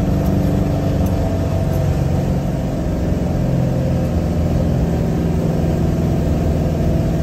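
Vehicle engine running steadily while driving, heard from inside the cabin: a constant low hum.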